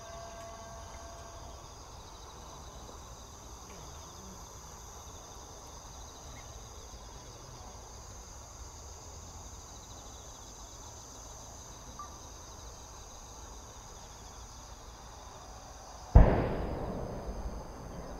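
Insects chirring steadily in the background; about 16 seconds in, a single heavy boom as the mortar fires a giant four-shaku firework shell skyward, rumbling away over about two seconds.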